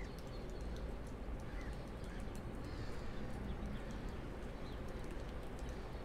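City morning ambience: a steady low hum under a few faint, sparse songbird chirps, with scattered light ticks throughout.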